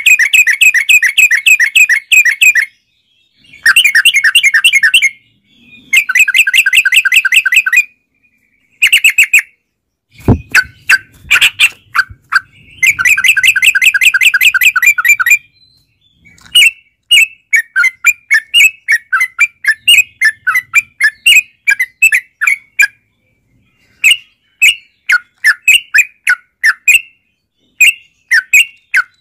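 Yellow-vented bulbuls (trucukan) singing in loud bouts of fast, bubbling repeated notes, each bout lasting one to two seconds with short pauses between. After the middle the notes come more spaced out, about two or three a second. A sharp knock sounds about ten seconds in.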